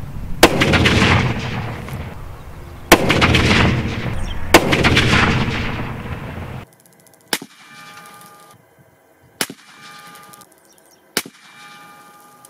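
Three shots from a Ruger American Ranch bolt-action rifle in .450 Bushmaster firing 300 grain HSM bear loads, the second about two and a half seconds after the first and the third a second and a half later, each with a long echoing tail. About two thirds of the way through the shooting ends and only faint tones and a few sharp ticks remain.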